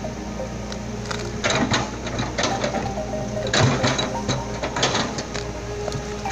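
Running machinery: a steady engine hum with rattling clatter and irregular knocks.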